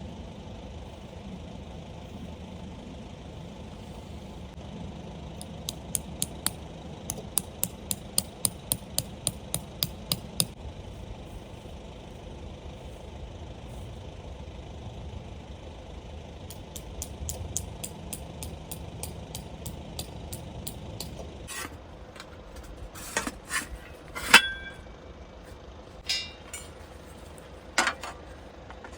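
Handling of metal objects. First comes a run of quick, evenly spaced clicks, about two or three a second. Later there are several separate clinks and knocks, one of them a loud ringing metal strike about three-quarters of the way through.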